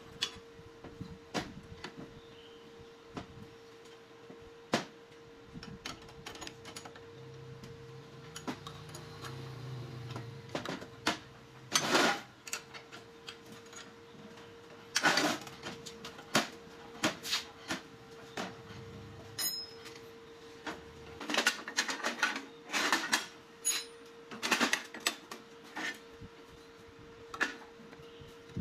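Steel parts clinking and clacking as an unpowered angle grinder and pieces of angle iron are handled, bolted and fitted together, in irregular knocks that bunch up in a few short clusters. A faint steady hum runs underneath.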